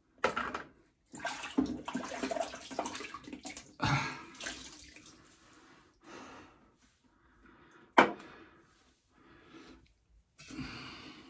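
Water splashing in a basin during rinsing, in bursts over the first six seconds, then one sharp knock about eight seconds in.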